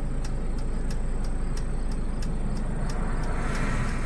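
Steady motor-vehicle rumble and hiss heard from inside a car cabin, with faint, evenly spaced ticking. A broader hiss swells near the end.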